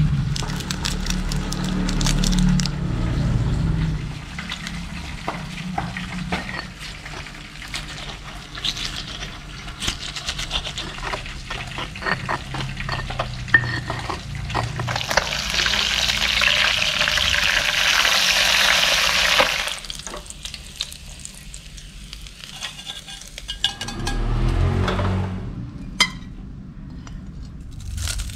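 Stone pestle crushing and grinding chilies and tomato into sambal in a stone mortar: a run of short, irregular scraping knocks, stone on stone. Later comes a steady hiss lasting about four seconds, which stops abruptly.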